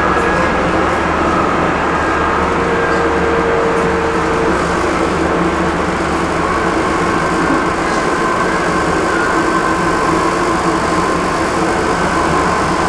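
Cologne line 16 light-rail tram running at speed, heard from inside the car: a steady rumble of wheels on rail with a faint, steady whine over it.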